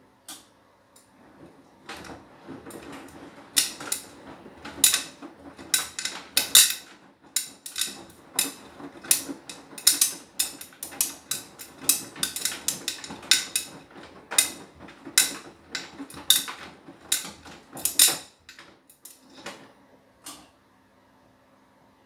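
Beko WTK104121W washing machine drum turning through a wash tumble, with irregular clacks and knocks as the laundry drops and strikes the drum. The drum stops near the end.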